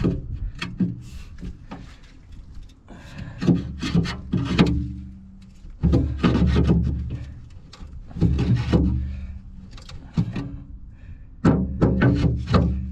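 Background music with a plucked bass line, mixed with irregular knocks and rubbing or scraping sounds.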